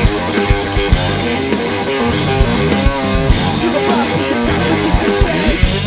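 Garage rock played by a guitar-and-drums duo: loud electric guitar over a steady drum-kit beat.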